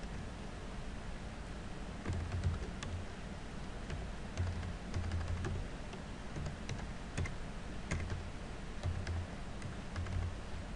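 Typing on a computer keyboard: scattered, irregular keystrokes over a low steady hum.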